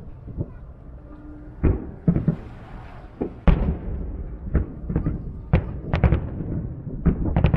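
Aerial firework shells bursting: a run of sharp booms, a few at first and then coming closer together in the second half, with a spell of hiss a couple of seconds in.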